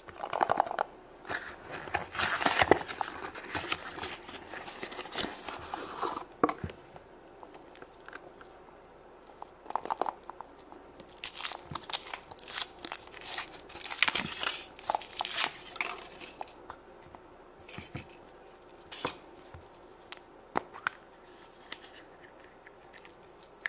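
A Kinder Surprise opened by hand: irregular crinkling and rustling of the foil wrapper as it is peeled off the chocolate egg, with scattered sharp cracks and clicks as the chocolate is broken and the plastic capsule inside is opened.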